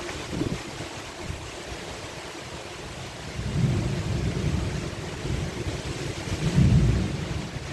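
Heavy rain and gusting wind of a thunderstorm downburst, a steady rushing hiss. The wind buffets the microphone in two strong low surges, one about three and a half seconds in and a louder one near the end.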